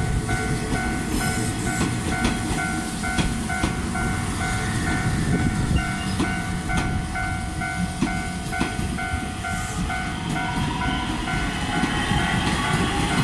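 Japanese level-crossing alarm bell ringing steadily in a rapid, even on-off pattern while a Nishitetsu electric train rumbles past, its wheels clicking over the rail joints. From about ten seconds in, a whine rises in pitch as a train's electric motors speed up.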